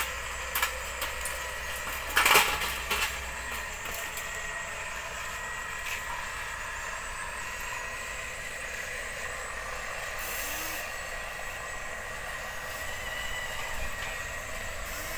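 Small electric motor and gearbox of a radio-controlled construction truck running with a steady high whine over a hiss. A loud short clatter comes about two seconds in, with a few lighter clicks around it.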